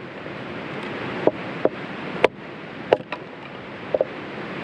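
Steady outdoor wind-and-water noise, broken by about six short, sharp snaps or clicks spread across the few seconds.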